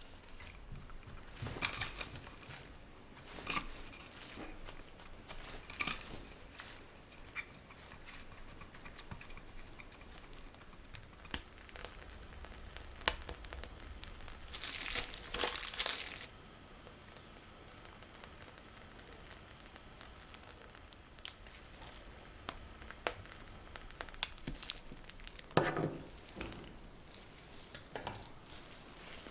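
Plastic film and a plastic piping bag crinkling and rustling under gloved hands, with scattered light clicks and taps. About halfway, a longer rustling squeeze as cream is piped from the bag through a metal nozzle. Near the end, a louder rustle as a clear, flexible sheet is lifted off a metal baking tray.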